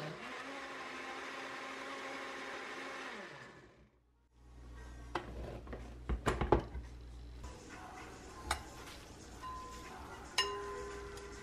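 Philips countertop blender running steadily as it grinds tofu, soy milk, sesame seeds and water into bean milk, then spinning down and stopping about three and a half seconds in. Knocks and clatter of the blender jar being handled follow, and a single clink near the end.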